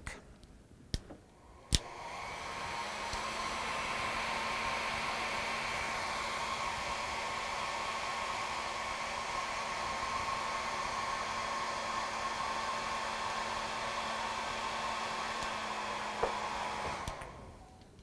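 Handheld hair dryer switched on with a click, its fan spinning up over a couple of seconds to a steady blowing rush with a low hum and a higher whine. Near the end it is switched off with a click and winds down.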